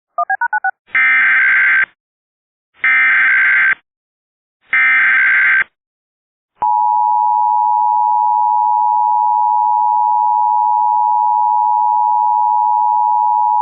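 Emergency Alert System broadcast tones: a few quick beeps, then three screechy digital SAME header bursts about a second long each, one second apart, then the steady two-tone EAS attention signal starting about six and a half seconds in.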